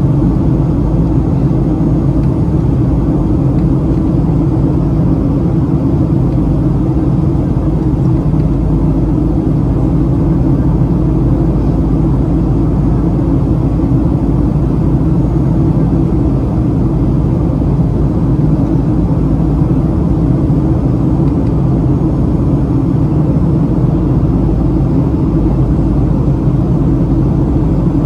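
Steady cabin noise of a Boeing 737-700 in flight, heard inside the cabin: the CFM56-7B turbofan's drone mixed with rushing airflow, low-pitched and unchanging throughout.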